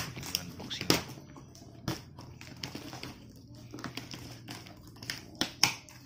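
Hands tearing packing tape and handling a cardboard box: rustling with a few sharp clicks and knocks, the loudest at the start and a pair about five and a half seconds in.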